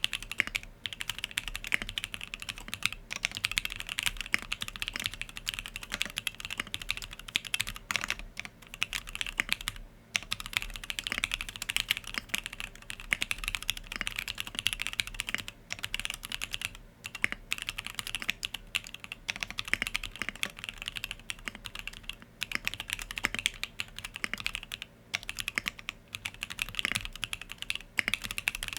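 Steady, fast typing on a Sangeo65 custom mechanical keyboard with an aluminium plate, plate foam, lubed SP-Star Yanyu linear switches and Infinikey keycaps: a dense run of keystroke clacks with the odd brief pause.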